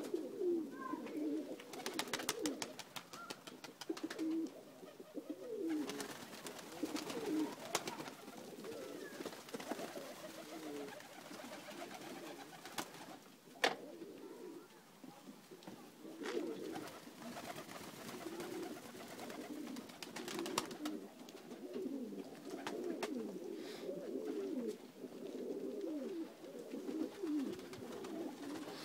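A flock of Macedonian Dunek pigeons cooing continuously, many birds overlapping. Scattered sharp clicks come through, the loudest about halfway through.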